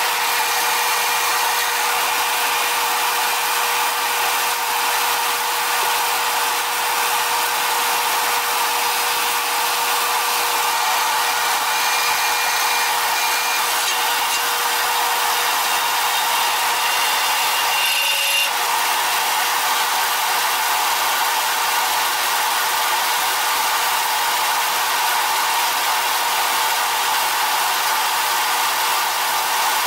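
Drill press running with its bit cutting into a steel C-channel: a steady hum from the machine under the rasping of the cut.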